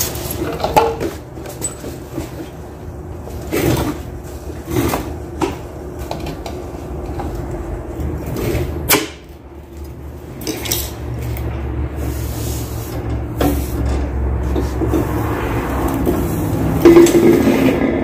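Handling noise at a workbench: irregular knocks and clatters as tools, hoses and small objects are picked up and set down, over a steady low hum.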